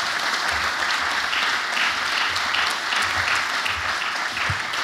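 Audience applauding steadily, welcoming a speaker.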